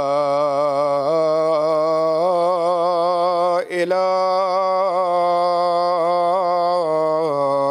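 A man's voice chanting the adhan, the Islamic call to prayer, drawing out the line "Ashhadu an la ilaha illallah" in long, ornamented held notes, with one short break about halfway through.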